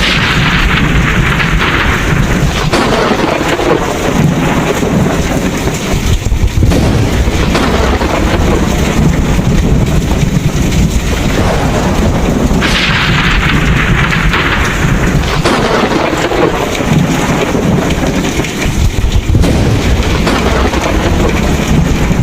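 Thunderstorm: heavy rain falling steadily under a continuous low rumble of thunder, with two sharper crashes, one at the start and one about halfway through, each dying away over a couple of seconds.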